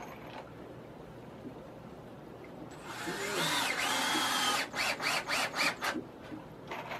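Cordless drill driving a screw into a pine board. The motor runs steadily for about two seconds with a rising whine, then gives about five short bursts as the screw is seated.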